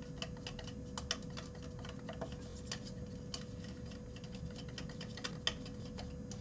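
A utensil stirring glue and water in a bowl, making irregular light clicks and taps, a few each second, against the bowl. A faint steady hum runs underneath.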